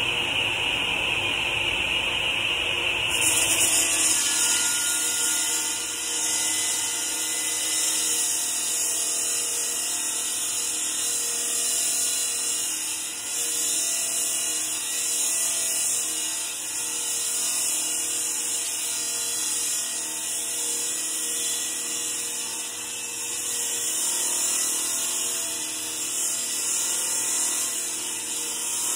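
Electric wet masonry saw cutting an 8-inch concrete block, its water-fed blade running at full speed. A steady motor whine is joined about three seconds in by a steady high hiss, and the level swells slowly as the blade works through the block.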